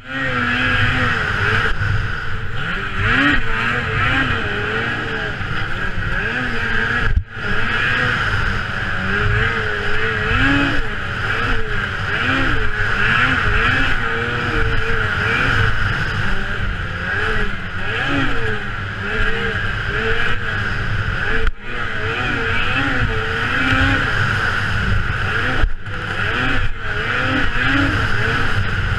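Snowmobile engine running hard at racing revs, heard onboard, its pitch rising and falling with the throttle. The sound cuts out briefly three times, about 7, 21 and 26 seconds in.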